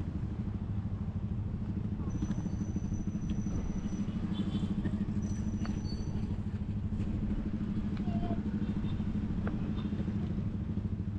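Motor vehicle engine running steadily with a low rumble.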